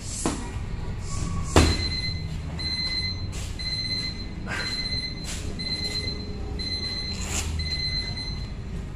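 Electronic boxing round timer giving a string of steady high beeps with short gaps, signalling the end of the round. A sharp thud about one and a half seconds in, just before the beeps start, is the loudest sound.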